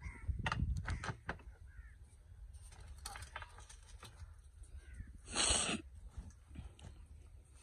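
Sharp clicks and knocks of a rotary laser level being handled and seated on its tripod pole, then one loud harsh rasp lasting under a second about five seconds in, over a steady low rumble.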